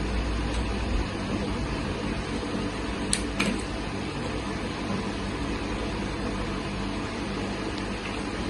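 Steady background hum of a small room, with a low hum that drops away about a second in and two short clicks a little past three seconds in.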